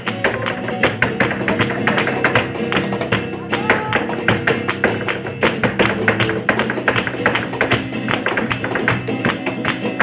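Live flamenco: a Spanish guitar playing under many sharp percussive strikes a second from the dancer's footwork and the handclaps (palmas).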